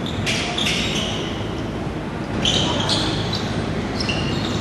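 Indoor basketball game: short, high-pitched sneaker squeaks on the hardwood court as players run, with the ball bouncing over steady gym noise.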